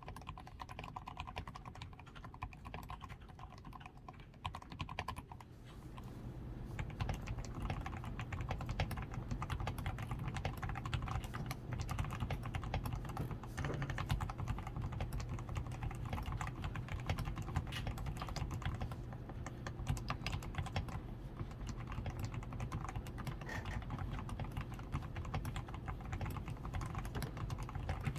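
Continuous typing on a DAREU A87 Pro mechanical keyboard with fully lubed switches (Krytox 105), lubed stabilizers, a tape-modded PCB and XDA keycaps: a fast, irregular run of key clacks. The typing is lighter at first and grows busier and louder about six seconds in.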